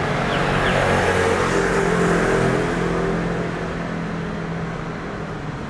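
A motor vehicle's engine running close by, a steady hum that fades gradually over the last few seconds as it moves away.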